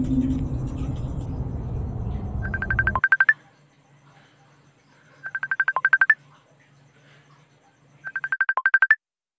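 Dark ambient music that cuts off about three seconds in. Then an electronic video-call calling tone: a quick run of short high beeps ending on a higher note, repeated three times about three seconds apart.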